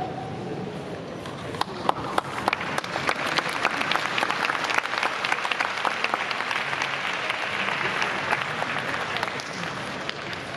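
Sumo arena crowd applauding: many hands clapping, building about a second in and easing off near the end.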